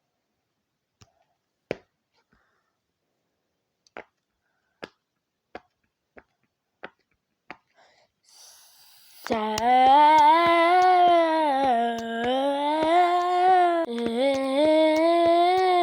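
A string of sharp single clicks, roughly one every second, from a handled fidget toy. Past the middle, a voice starts humming a tune in held, stepping notes, with more small clicks over it.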